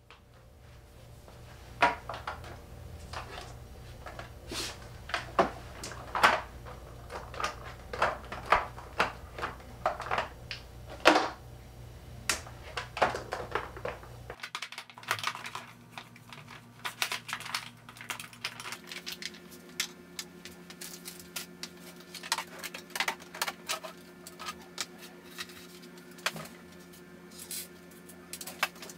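Small jars of nail glitter clicking and clinking as they are picked up and set down on shelves, in irregular knocks, some louder than others.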